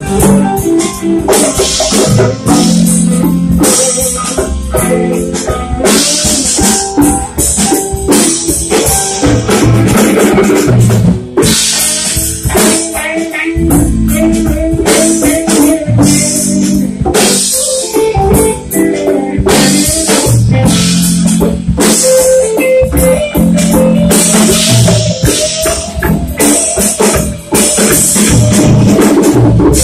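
Live band playing loud: electric guitars, electric bass and a drum kit with a steady beat.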